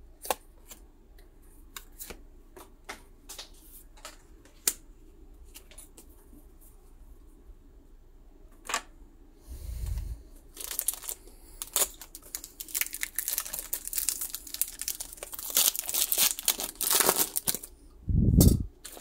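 Scattered light clicks and taps, then, from about ten seconds in, a long run of crackling as a Pokémon booster pack's foil wrapper is torn open and crumpled. A dull thump comes just before the crackling and another near the end.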